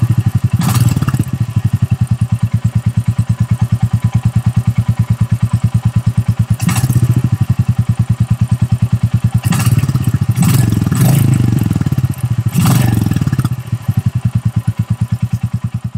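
Royal Enfield Classic 350's single-cylinder engine idling through its stock chrome exhaust with a DNA stage 2 performance air filter fitted, a steady low thump, with the throttle blipped several times in short revs.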